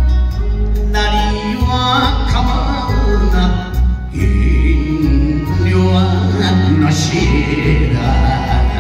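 A man singing an enka-style song into a microphone over recorded backing music with a strong, steady bass line.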